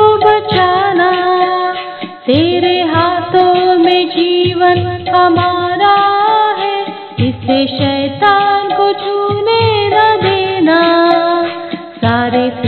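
Hindi Christian devotional song: music with a woman singing a gliding, ornamented melody line.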